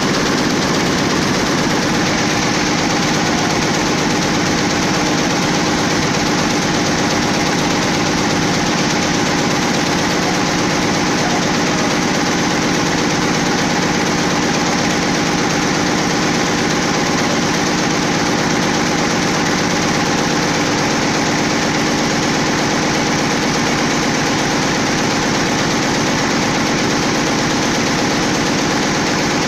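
Schiffli embroidery machine running at speed: a steady, dense mechanical clatter from its long row of needles stitching.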